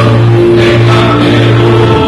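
Choir singing sustained chords, with a long held low note beneath.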